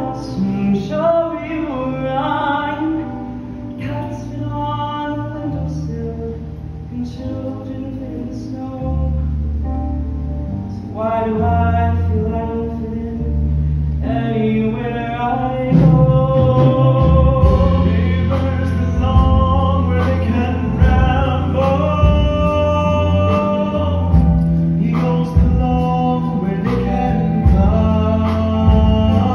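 Live male singer performing a song into a headset microphone, amplified over a musical accompaniment with a steady bass. The music grows louder and fuller about halfway through.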